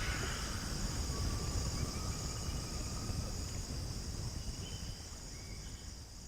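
Amazon rainforest insect chorus: a steady high-pitched buzzing over a low rumble, slowly fading out toward the end.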